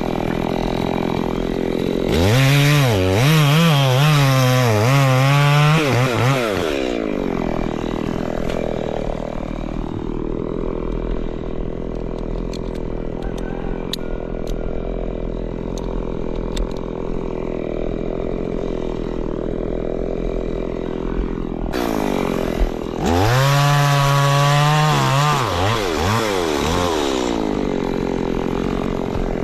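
Chainsaw engine idling, brought up to full throttle twice for about five seconds each, about two seconds in and again near the end, its pitch wavering at high revs as if under load in wood.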